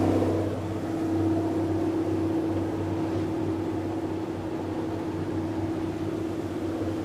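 Sightseeing boat's engine running at a steady cruising speed, heard on board: an even low hum with a steady higher drone above it.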